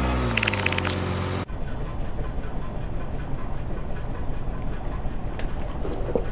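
Car engine idling steadily, after a pitched sound with tones that bend up and down cuts off abruptly about a second and a half in.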